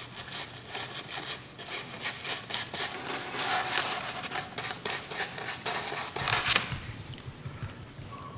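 Cheap paintbrush scrubbing green acrylic paint onto a craft pumpkin's stem in quick, short, scratchy strokes, several a second. The strokes stop about six and a half seconds in.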